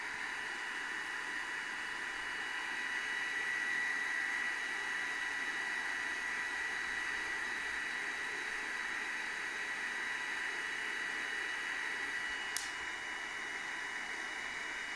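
A small fan running steadily: an even hiss with a thin high whine, and one short click about twelve seconds in.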